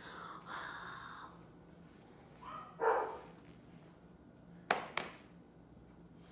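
A heavy breath out at the start, then a dog barking once about three seconds in, and two sharp knocks close together just before the five-second mark.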